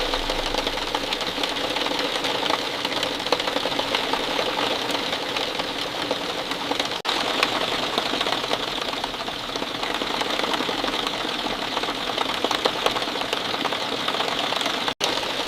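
Steady rain falling, a dense patter of countless small drops. It cuts out for an instant about seven seconds in and again near the end.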